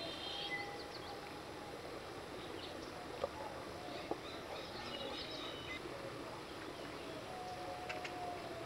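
Birds calling over steady outdoor background noise: clusters of short high chirps near the start and about halfway, and a long steady whistled note near the end. Two sharp clicks fall in the middle.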